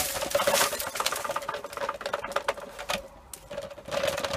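Clear plastic dust bin of a Dyson cordless vacuum being shaken over a wheelie bin, with its hinged base flap open: a fast, irregular rattle of plastic clicks and clatters as the collected dust and hair are knocked out.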